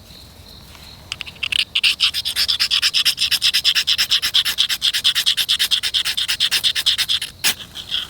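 Rapid rhythmic scraping or rubbing strokes, about seven a second, starting about a second and a half in and stopping shortly before the end.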